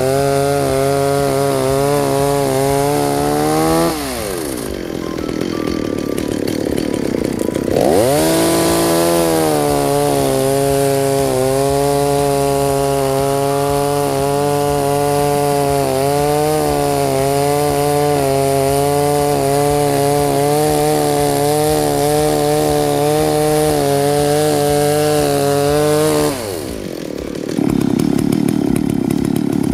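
Stihl chainsaw with a freshly sharpened chain cutting through a log at full throttle. The engine pitch drops off the throttle about four seconds in, climbs back up as it goes into the cut again a few seconds later, and drops once more near the end.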